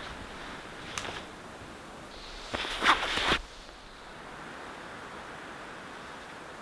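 Steady soft outdoor hiss, broken by a single click about a second in and a short burst of rustling and crunching from about two and a half to three and a half seconds in: a person moving a backpack around in snow.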